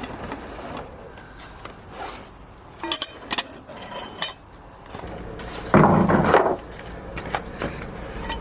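Metal hand tools clinking as they are handled and set down, a few sharp clicks, then a louder noisy clatter lasting under a second about six seconds in.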